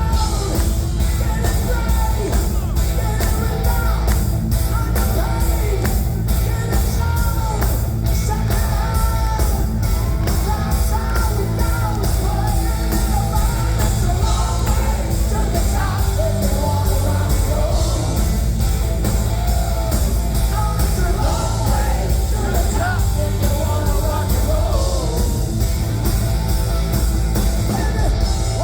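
Loud rock music with a singer, driven by drums and a heavy bass.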